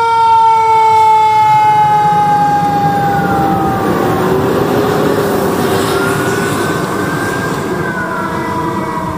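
E-ONE fire engine's siren sounding as the truck passes and drives off: a long tone that slowly falls in pitch over the first few seconds, then slow rising-and-falling wails. The truck's engine and road noise run underneath.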